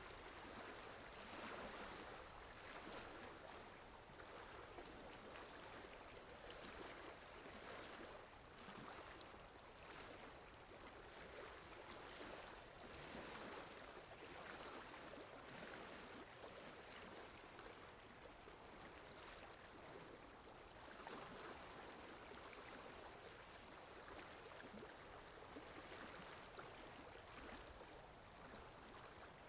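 Rain falling steadily and softly: an even hiss that swells a little every few seconds.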